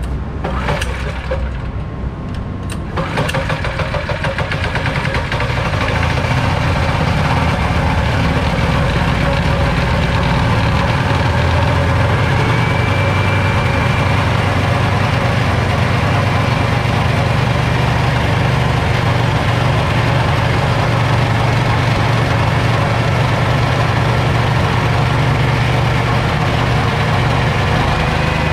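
6.5 HP single-cylinder petrol engine driving an FFC-15 grain mill. About three seconds in, the engine is throttled up from a lower running speed; it then runs steadily at speed while rice is fed through the mill and ground into fine flour.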